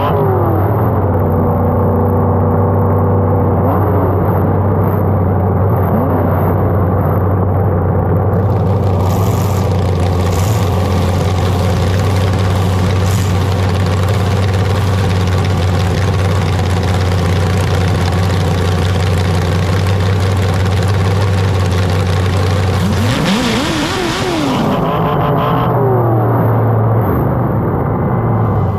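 Loud engine running. Its pitch falls at the start, the sound turns broader and harsher from about eight seconds to about 23 seconds in, and then the engine revs up and down again.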